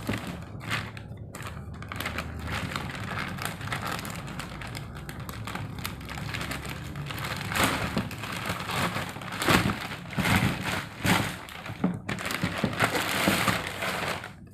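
Packaging being handled and unwrapped, crinkling and rustling with irregular crackles that grow busier and louder in the second half.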